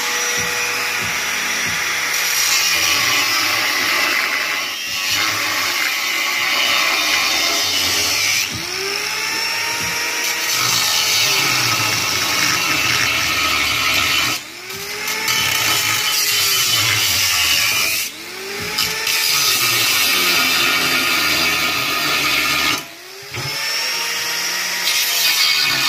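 Angle grinder with a cheap thin cutting disc cutting stainless-steel exhaust pipe. Its pitch sags and recovers in arcs as the disc bites, and it drops out briefly three times in the second half as it is eased off the cut. The disc cuts poorly and wears down fast.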